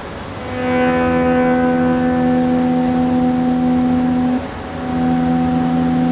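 A loud, steady horn-like tone made of several pitches sounding together. It is held for about four seconds, breaks off briefly, and sounds again.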